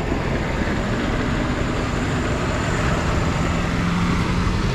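Wind blowing across the microphone, with a motor humming underneath that grows a little louder near the end.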